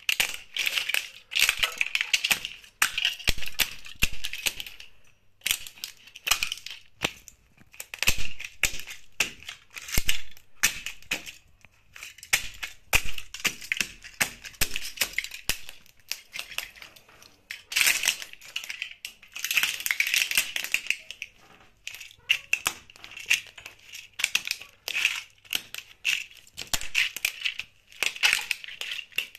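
Plastic model aircraft cracking, snapping and crunching under the rope soles of wedge espadrille sandals as they step on and grind them, in irregular clusters of sharp cracks with brief pauses between.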